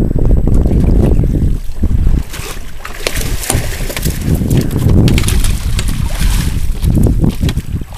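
Wind rumbling on the microphone, and from about two seconds in, several seconds of splashing as a hooked leopard shark thrashes in a landing net at the water's surface.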